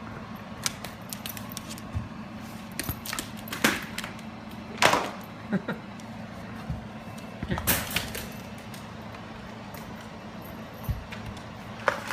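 Shiba Inu dog nosing and pushing a soccer ball across a hardwood floor: scattered knocks, scuffs and claw clicks, the loudest about five seconds in and again near eight seconds.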